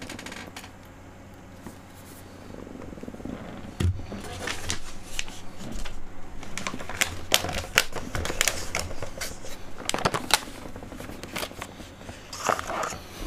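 Cardboard phone packaging and a boxed phone case being handled and set down on a desk mat, making a run of light clicks, taps and knocks that starts about four seconds in after a quiet stretch.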